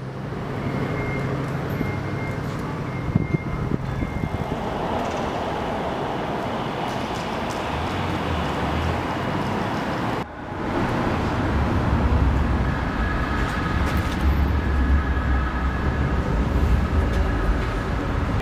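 Steady roar of urban traffic noise, with a brief drop about ten seconds in and a heavier low rumble after it.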